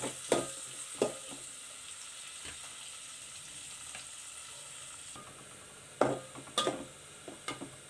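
Sliced onions sizzling in hot oil in a metal pan, with a metal spatula scraping and stirring them briefly near the start and again a few times about six seconds in.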